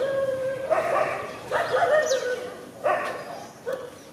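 Baby long-tailed macaque crying: a string of short, whining calls, five in a row, the first still sounding as the others start.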